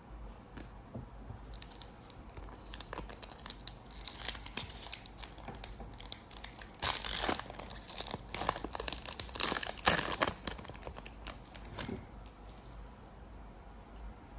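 Bowman Chrome trading-card pack wrapper being torn open and crinkled, a long run of crackling bursts that is loudest about seven and ten seconds in.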